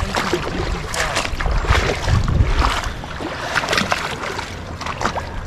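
Moving river water splashing around a kayak, with scattered sharp clicks and knocks and bursts of low rumble about two seconds in.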